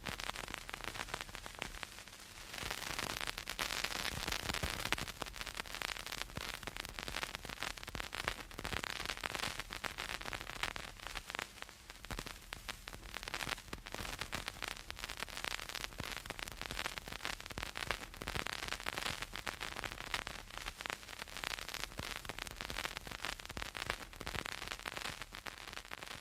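Vinyl LP surface noise: a dense, continuous crackle of small clicks and pops over a steady hiss, with a faint low hum underneath.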